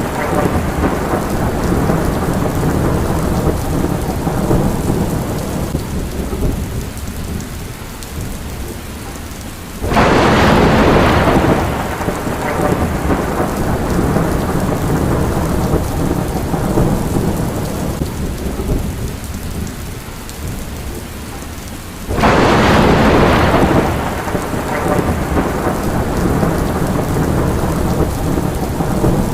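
Thunderstorm: steady heavy rain with thunder. A loud crack of thunder breaks in suddenly about a third of the way through and again about three quarters through, each rumbling away over several seconds under the rain.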